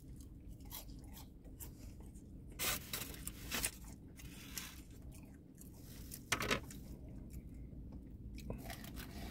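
A person chewing food with the mouth closed: soft, wet clicking bites, with a few louder crunchy sounds about three, three and a half, and six and a half seconds in.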